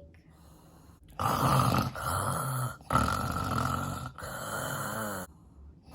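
A person imitating loud, pig-like snoring: three long, rough snores in a row, starting about a second in.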